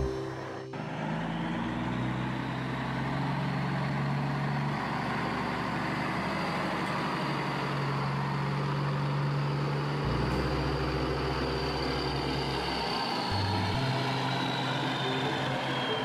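Dump truck engine sound effect running steadily as the truck drives. Its low engine note shifts a couple of times, about ten seconds in and again near the end.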